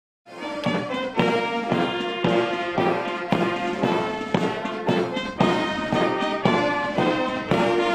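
Military brass band playing a march, with a steady beat of about two strokes a second.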